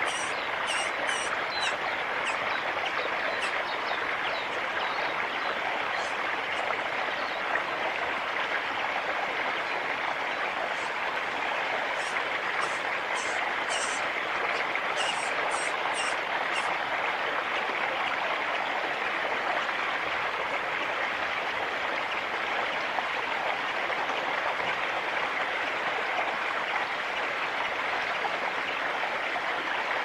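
Yellow-faced honeyeater nestlings begging with very short, high, thin calls in quick runs, near the start and again around the middle. A steady rushing background noise runs underneath.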